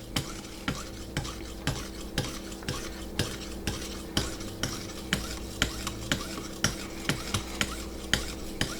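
Abrasive lapping-film paddle of a guided-rod knife sharpener stroked back and forth along a knife edge to polish it, with a light tick at each stroke in an even rhythm of about two a second.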